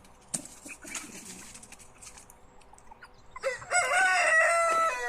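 A rooster crowing once, a single long crow that starts about three and a half seconds in, holds, and drops in pitch at the end. Before it there are only faint scattered ticks and chirps.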